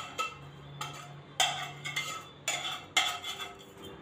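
A bowl knocking and scraping against the rim of a steel mixing bowl as cooked fenugreek leaves are tipped and scraped out onto flour: about half a dozen sharp, irregular knocks.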